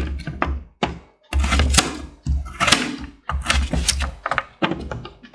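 Knife cutting coconut flesh into pieces: clusters of sharp knocks and thunks, with short pauses about every second.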